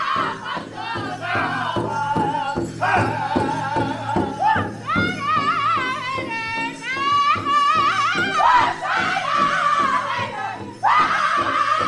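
Powwow drum group singing an intertribal song in high, wavering voices over a steady, even beat struck together on a large hide-covered powwow drum. Near the end the singing drops away briefly, then comes back in loud.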